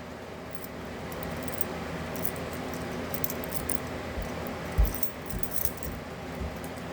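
Keys jangling and clinking in scattered light chinks while being handled, with one dull thump about two-thirds of the way through.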